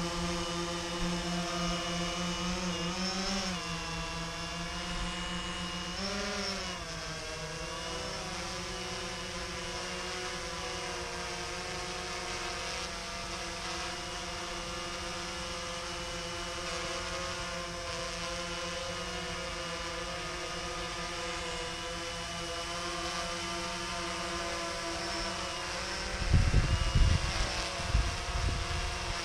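DJI Phantom 2 quadcopter hovering, its rotors making a steady multi-toned hum whose pitch wavers up and down about three and six seconds in. Near the end a few loud, low rumbles come over it.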